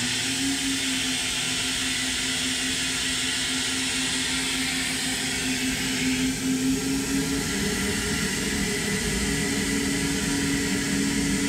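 SuperFlow SF-600 flow bench running at test pressure, its motors making a steady vacuum-like roar with a humming tone as they draw air through a ported Hemi cylinder head's intake port. The hum shifts pitch about seven seconds in.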